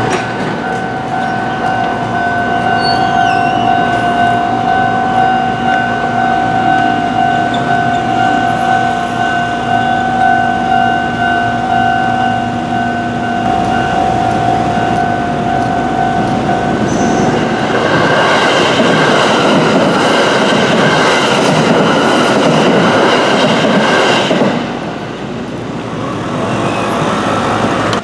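A steady ringing signal sounds for the first sixteen seconds or so, then a Hanshin Railway train passes, its wheels and running noise loud for about six seconds before easing off near the end.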